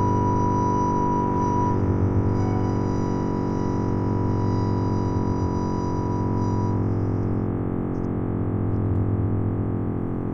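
Sustained electronic drone music: layered synthesizer tones held steady over a low hum, with a high tone that drops out about two-thirds of the way through.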